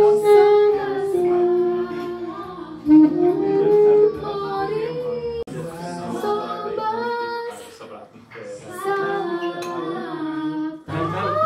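Several voices singing a song together in long held notes that step from pitch to pitch. They briefly drop away about eight seconds in, then pick up again.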